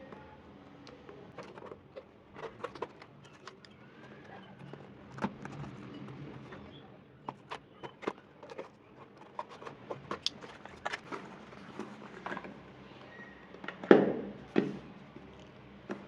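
A courier package being opened by hand: scattered crackles, rustles and small clicks of packaging being handled and torn, with two louder crackling handlings near the end.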